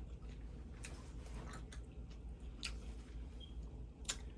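Faint chewing with a few sharp mouth clicks, about one a second, from someone eating spaghetti close to the microphone.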